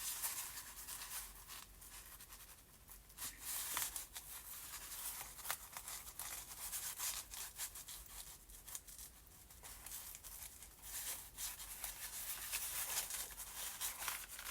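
Paper pages and twine being handled as a twine binding is redone: soft rustling and rubbing with scattered small clicks.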